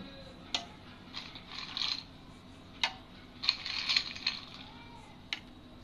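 Ice cubes clinking and clattering as they are dropped into a steel mixer-grinder jar of curd and milk: a few sharp clinks and two short spells of rattling.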